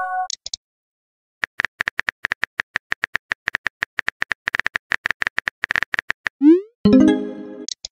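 Rapid phone-keyboard tap clicks as a text message is typed, running for about five seconds after a short silence, then a short rising swoop of a message being sent, followed by a brief chime near the end. A notification tone just finishes at the very start.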